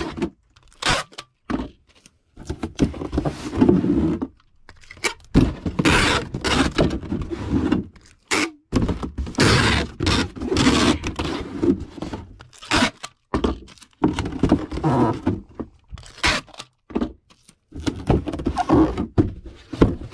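Irregular packing noises: items handled and set into a shipping box, with knocks, scrapes and rustling coming in separate bursts.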